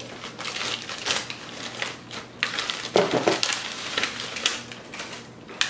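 Crinkling and tearing of a plastic snack wrapper around a flaky strawberry Genji pie, with irregular crackly crunches, loudest about halfway through.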